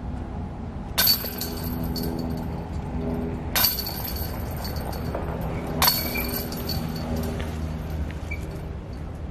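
Putted golf discs striking the hanging chains of a metal disc golf basket three times, about two and a half seconds apart. Each hit is a sharp crash of chains that jingles on briefly as the disc drops into the basket, a made putt.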